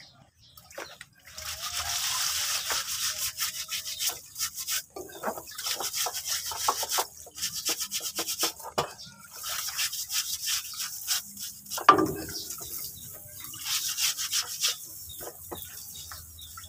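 Scratchy scrubbing and splashing as a truck drum brake shoe is scrubbed clean in a tray of oil. It comes in several bouts with short pauses, and there is one sharp knock about twelve seconds in.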